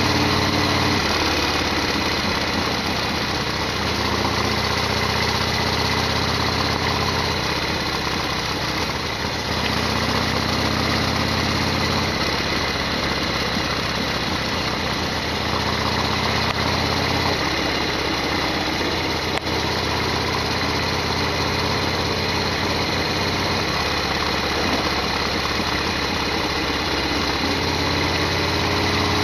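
Harley-Davidson Sportster XL1200R's air-cooled V-twin running while the motorcycle is ridden, its engine note shifting up and down several times as engine speed changes.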